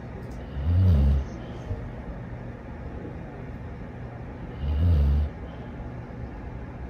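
Dog snoring: two low snores about four seconds apart, each lasting about half a second.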